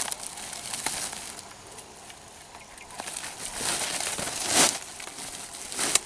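Rustling and crinkling of a woven plastic sack being handled, with dry grass and twigs crackling; the loudest rustle comes a little past the middle, with a shorter one near the end.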